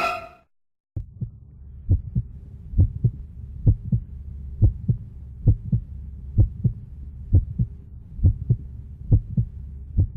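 Heartbeat sound effect: paired low thumps, lub-dub, about once a second over a faint steady low drone, starting about a second in after the music cuts off.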